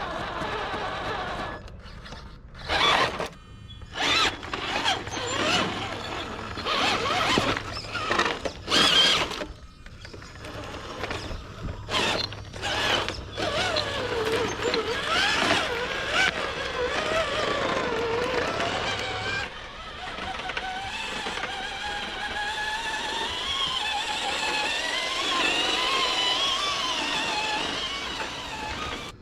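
RC crawler tow truck's small electric motor and gearbox whining, rising and falling in pitch with the throttle, with sharp knocks and clicks over the first ten seconds as the truck crawls over rough ground.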